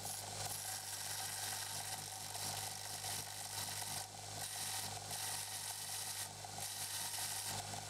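Belt grinder running with a steel blade ground against the belt: a steady motor hum under a hissing grind that breaks off briefly twice, about four and six seconds in, as the blade is lifted and pressed again.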